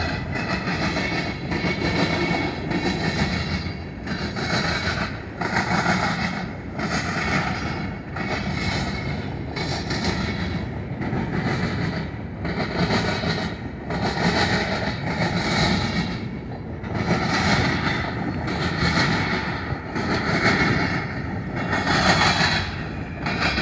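Freight train's tank cars and covered hoppers rolling past, their wheels clattering in a steady rhythm about once a second.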